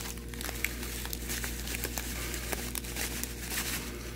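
Clear plastic bag of panko breadcrumbs crinkling as the crumbs are poured out onto a wooden cutting board, with many small crackles throughout.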